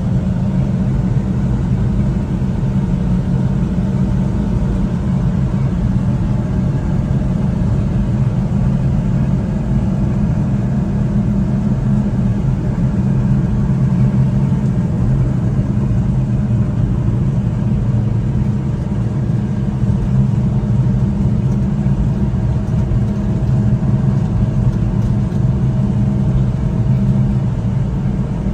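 Honda Acty kei truck's 660 cc three-cylinder engine running steadily on the move, with road noise, holding an even pitch and level throughout.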